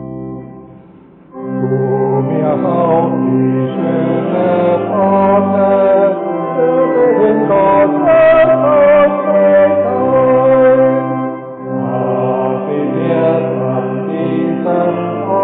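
Church organ lets a held chord die away, then about a second in the organ and congregation start a hymn together, voices singing over held organ notes.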